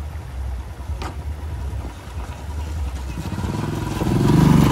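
A vehicle engine growing louder and rising in pitch over the last second and a half, over a low, uneven rumble, with a single click about a second in.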